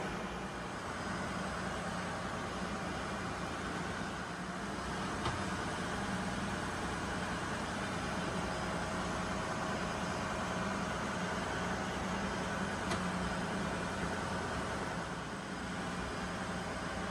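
Steady drone of running machinery in a ship's engine room: a constant low hum under a broad hiss, with a couple of faint clicks.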